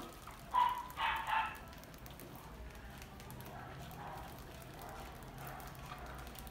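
Rodents crowded in a metal box trap scrabbling and rustling in the grain bedding, a steady crackling rustle. About a second in come two short, loud animal calls.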